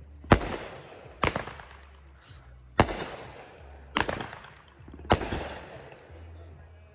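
Consumer fireworks going off: five sharp bangs about a second apart, each trailing off in a fading crackle and echo.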